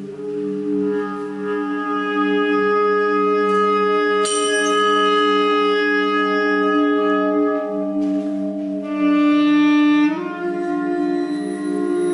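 Live improvised ensemble music: a bass clarinet holds long, steady notes, with a brief bright high ring about four seconds in and a small step up in pitch about ten seconds in.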